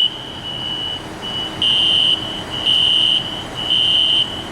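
Building fire alarm sounding a high-pitched electronic tone that pulses about once a second, with louder and softer beats in turn.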